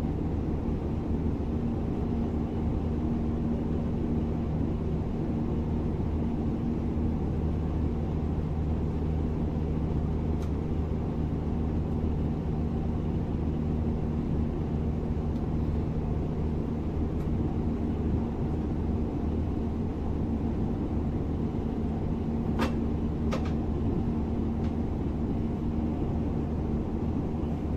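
Class 425 electric multiple unit running at steady speed: an even rumble with a low steady hum. Two short sharp clicks about three-quarters of the way through.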